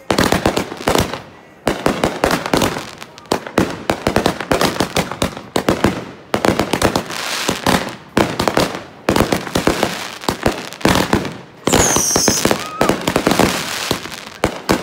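Aerial fireworks going off in quick succession, a dense run of bangs and crackling, with a brief falling whistle about twelve seconds in.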